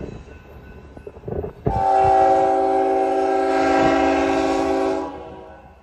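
Union Pacific freight locomotive's air horn sounding one long blast, a chord of several steady notes that starts abruptly about a second and a half in, holds for about three seconds, then dies away. The low rumble of the approaching train lies underneath.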